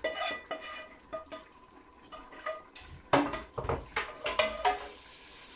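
A metal spoon scraping and tapping a frying pan as fried vegetables are emptied into a pot, the pan ringing with each strike. A few heavier knocks follow about three seconds in, as the cookware is handled and set down.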